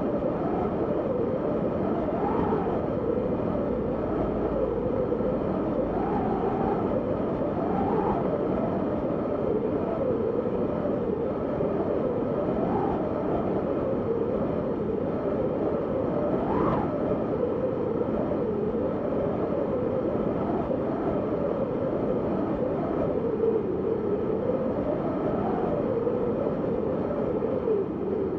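Wind sound effect: a steady rush of wind with a low howl that wavers up and down in pitch every second or two, with one sharper rise about 17 seconds in.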